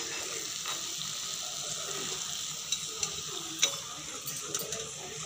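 Hot oil sizzling steadily in a wok as spinach bhaji fry, with a few light clicks of a slotted steel spoon from about two and a half seconds in.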